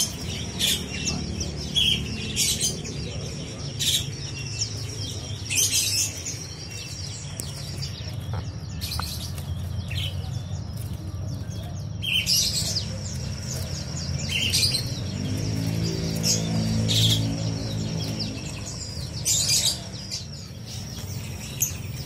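Caged songbirds chirping, with short, sharp calls every second or two over a steady low hum and a faint continuous high whine. A low droning sound swells and fades about two-thirds of the way through.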